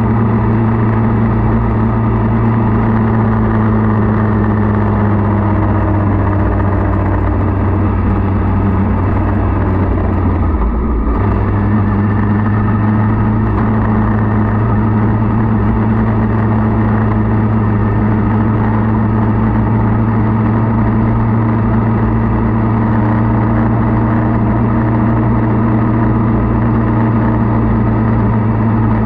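Motorcycle engine running steadily while riding, with a brief dip in the engine note about eleven seconds in.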